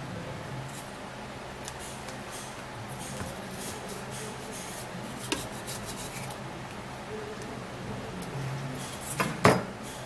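Kitchen knife scraping along a watermelon rind against the rim of a plastic blender jar: scattered light scrapes and clicks over a low steady hum, with a sharp knock about five seconds in and a louder knock near the end.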